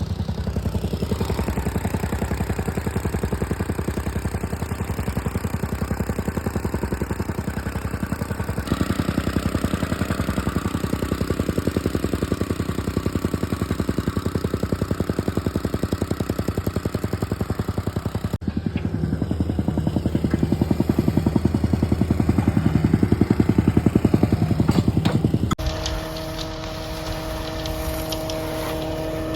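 Digging machinery's diesel engine running steadily under work, heard across several cut clips. It is louder in the stretch after about two thirds of the way in, and in the last few seconds it gives way to a different steady hum with a few clear tones.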